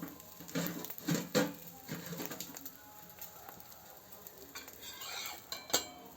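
A utensil scraping and knocking on a hot griddle as a cooked omelet is lifted off, with a few sharp clinks over faint sizzling.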